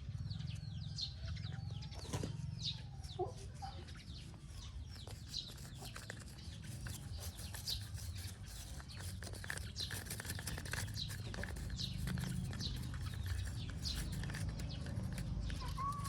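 Many short, high bird chirps over a low, steady rumble.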